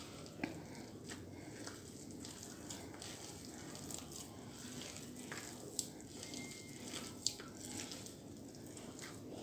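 A hand kneading crumbly, floury cookie dough in a glass bowl: faint squishing and crunching. Three short sharp clicks: about half a second in, near the middle, and a second and a half later.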